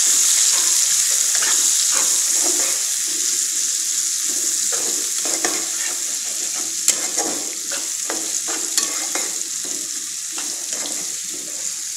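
Sliced onions sizzling in hot oil in a wok, just put in to fry, while a metal spatula stirs and scrapes them against the pan in short strokes. The sizzle is loudest at the start and eases off gradually.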